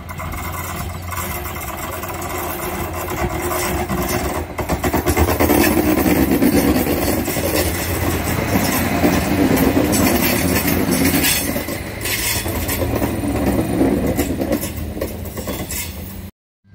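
Adelaide Metro diesel railcar approaching and passing close by: a steady engine hum, growing into a louder rush of wheels on rail as the cars go past, then easing off as it moves away. The sound cuts off abruptly just before the end.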